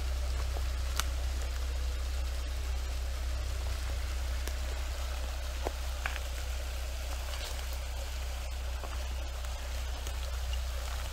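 Steady hiss of running water, over a low steady rumble, with a few scattered clicks of footsteps on wet leaf litter and rocks.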